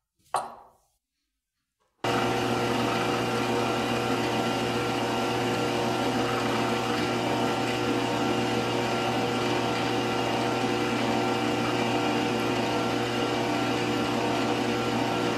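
Metal lathe running at a steady speed while a twist drill in the tailstock chuck bores into the spinning metal part, drilling the final clearance hole after the pilot hole. It makes a steady machine hum with several fixed tones, starting abruptly about two seconds in and cutting off abruptly near the end.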